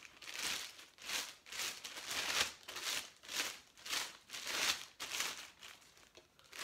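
Clear plastic wrapping crinkling as it is worked off a new fishing rod by hand, a run of short rustles about two a second that thins out near the end.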